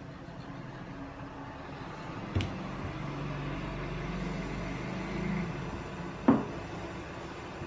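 Two short knocks of kitchenware being handled, a lighter one about two and a half seconds in and a louder, slightly ringing one about six seconds in, over a steady low hum that swells a little in the middle.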